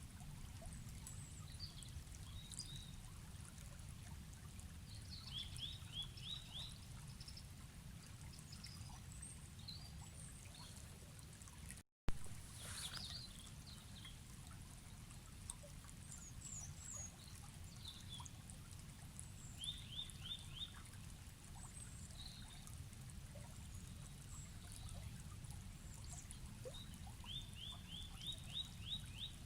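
Forest river flowing with a steady low rush, while birds call over it: short quick runs of rising chirps that come back every several seconds, and scattered higher chirps. About twelve seconds in the sound cuts out for a moment and comes back with a sharp click.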